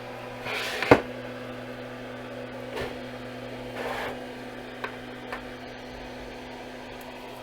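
Steady electrical hum with a sharp click about a second in and a few faint handling knocks; the hum's upper tone drops away near the end.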